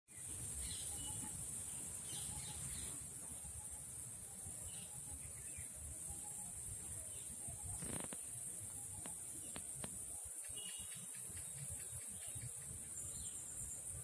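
Indian cicada (Huechys incarnata testacea) shrilling: a steady, high-pitched continuous buzz. A few sharp clicks come about halfway through.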